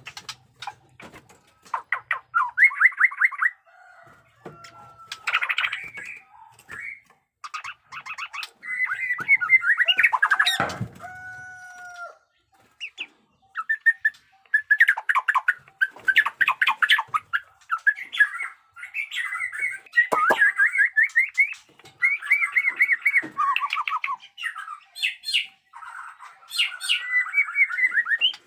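White-rumped shama singing: loud phrases of fast repeated notes and trills with short pauses between them.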